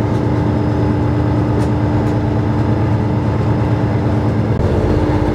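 Steady drone of a steel commercial fishing boat's engine running, with a constant hum over a deep rumble. The low rumble grows heavier near the end.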